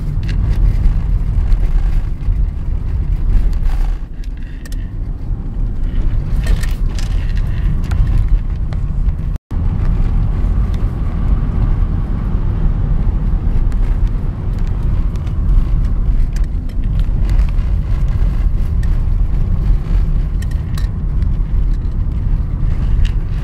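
A vehicle driving on a rough dirt and gravel road, heard from inside the cabin: a steady low rumble of engine and tyres with scattered knocks. The sound cuts out for an instant about nine seconds in.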